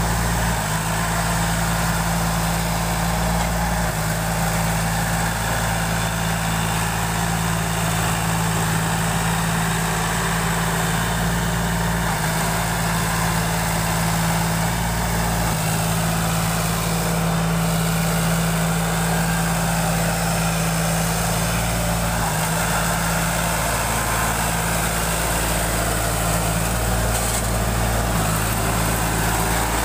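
Sonalika RX 50 tractor's diesel engine running steadily at low revs.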